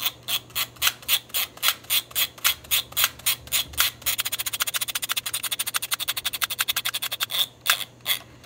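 Ilford Ilfocolor Rapid single-use camera's film-advance thumbwheel being turned quickly with the shutter button held down, ratcheting in a rapid run of sharp clicks as the roll is wound through to the end. The clicks come about five a second at first, then faster for a few seconds, and stop shortly before the end.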